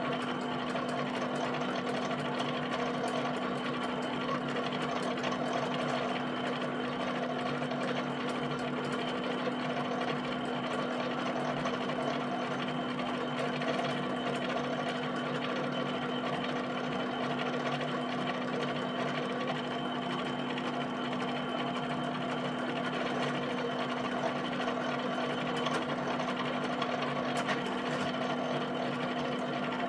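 HP 7585B pen plotter drawing a field of dots: the pen tapping down onto the paper in a rapid, steady stream while the carriage and paper-drive motors hum.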